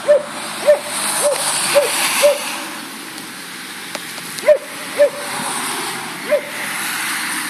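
A dog barking repeatedly, about twice a second, then three more barks after a short pause, over a steady hiss of tyres on a wet road.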